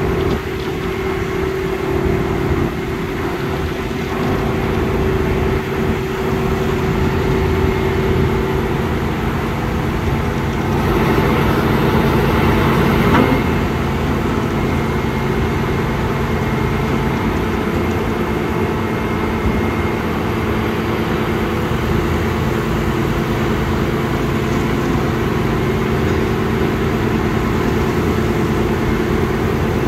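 Diesel engine and hydraulic winches of a large mobile boat hoist (travel lift) running steadily under load as it hoists a big yacht out of the water, a little louder for a couple of seconds midway.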